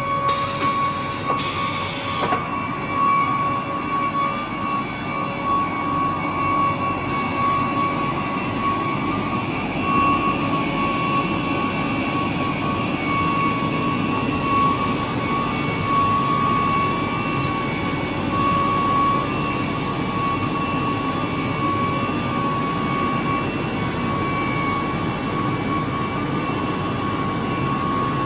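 CNC router with automatic tool changer running: a steady high whine over a continuous rushing machine noise, with two short hisses of air about one and two seconds in.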